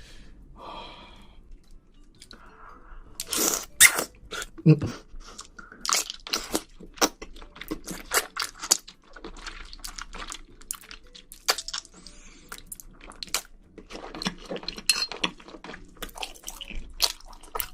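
Close-miked chewing of spicy seafood and glass noodles: wet, crunchy bites in quick succession, a dense run of sharp crunches from about three seconds in.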